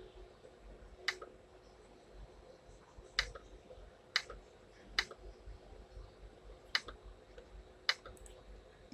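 Computer button clicks: six sharp single clicks, spaced about one to two seconds apart, over a faint steady hum.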